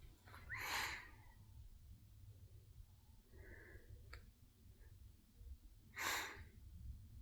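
Two soft, breathy exhales like sighs, each about half a second long, one about a second in and one near the end.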